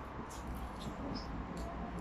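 Quiet room tone: a steady low hum, with a few faint, short, high chirps or clicks about every half second.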